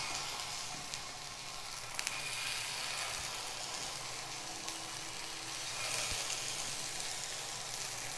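Potato tikkis sizzling steadily in oil on a hot tawa over low heat, as more patties are laid down one after another.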